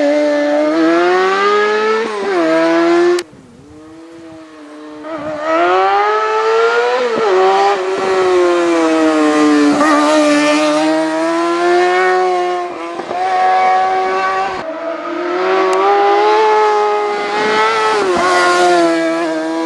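Suzuki sport motorcycle racing at high revs, its engine note climbing in pitch and dropping back several times as it accelerates and slows for the bends. About three seconds in the sound drops off suddenly, then builds back up to full volume.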